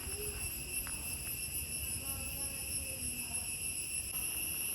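Insect chorus, such as crickets or cicadas, giving a continuous high-pitched drone at several steady pitches, over a faint low rumble.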